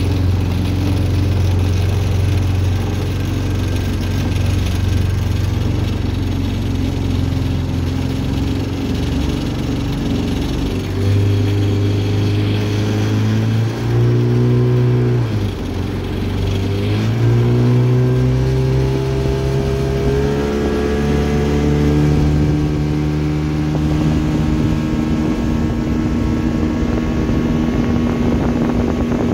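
Motorboat engine running under way, a steady drone; about halfway through its pitch dips sharply and then climbs back up and holds.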